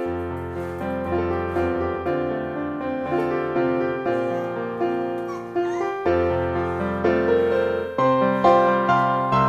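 Background piano music: notes struck and left to fade over held low bass notes.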